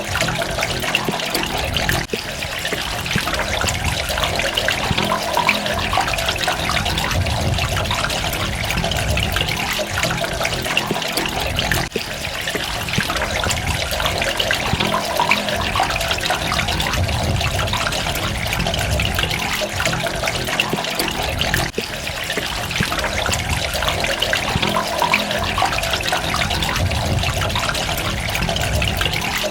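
Steady running, trickling water, dipping briefly about every ten seconds.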